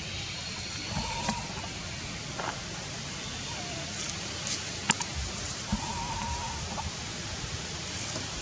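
Steady outdoor background hiss with a few faint, drawn-out animal calls: a short one about a second in, a falling one a little later, and a longer wavering one past the middle. Two sharp clicks stand out, one early and one near the middle.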